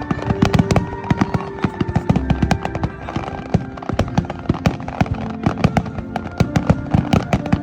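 Fireworks popping and crackling in dense, irregular rapid bangs, with music playing beneath.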